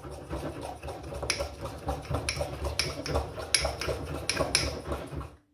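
Metal spoon stirring thick chocolate cake batter in a ceramic mug, scraping the bottom and clinking against the sides over and over, about twice a second, stopping just before the end.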